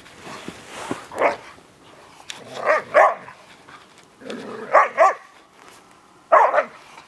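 Ibizan hounds barking in rough play: about seven short, high barks, mostly in quick pairs, spaced roughly every one and a half to two seconds.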